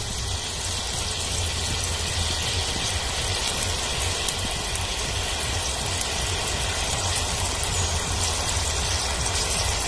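Chilli chicken sauce boiling in a wide metal wok: a steady bubbling hiss over an even low rumble.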